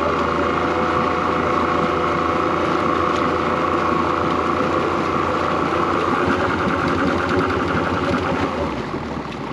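Evinrude E-TEC 90 two-stroke direct-injection outboard running steadily at low revs in the water. It runs smoothly after a corroded injector wire was repaired, and it seems to be fixed.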